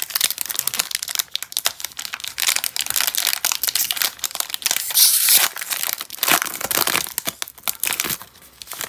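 Foil booster-pack wrapper crinkling and tearing as it is ripped open by hand, loudest about halfway through, then dying down near the end as the cards come out.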